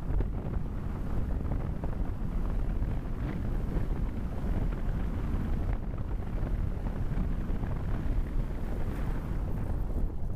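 Airflow buffeting the GoPro microphone on a flying Easystar 2 model plane: a steady, rough rumble of wind noise with no clear motor tone.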